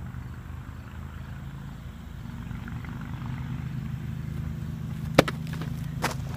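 A steady engine drone in the background. A sharp knock about five seconds in, the loudest sound, and a lighter one about a second later.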